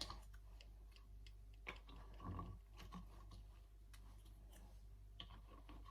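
Near silence: room tone with a low hum and a few faint, short clicks and taps.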